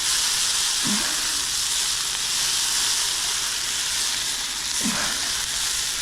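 Sofrito of onion, garlic and tomato paste sizzling steadily in a hot stainless steel pan.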